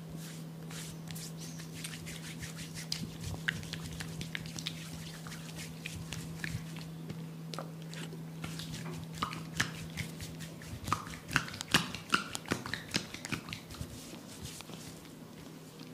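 Hands massaging oiled skin: a run of soft slaps, taps and clicks that grows busier and louder in the last third. A steady low hum underneath stops about two-thirds of the way in.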